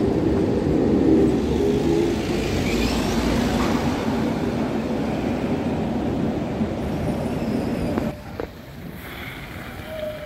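A tram passing close by, a heavy rumble of wheels and running gear on the rails that slowly fades as it moves away. About eight seconds in it drops abruptly to a quieter outdoor background.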